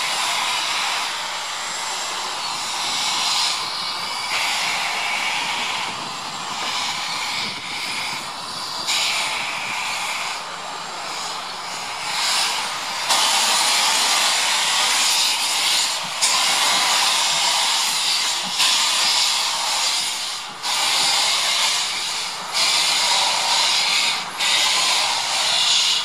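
BR Standard Class 5MT 4-6-0 steam locomotive No. 73050 moving off slowly with its cylinder drain cocks open: loud steam hissing. In the second half the hiss comes in long surges that cut in and out every second or two.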